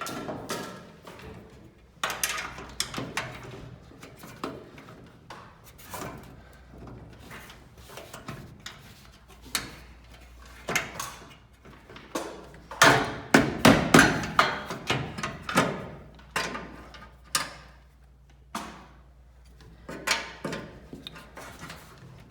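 Repeated metal knocks and clanks of tools and hardware being worked on a garage door, loudest in a quick cluster a little past the middle, over a low steady hum that stops near the end.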